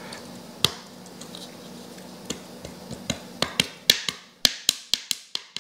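Sharp clicks and taps of hard 3D-printed plastic parts of a model airplane being pushed and worked into place by hand: one click about half a second in, then a quickening run of clicks from about three seconds in.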